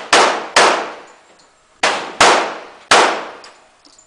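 Five gunshots: two in quick succession, then another quick pair, then one more. Each shot is a sharp crack that trails off in a ringing echo.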